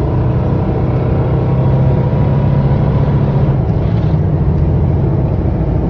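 Buick's engine running steadily with an even hum, the misfire cured now that the ECU's temperature sensor is back in its port.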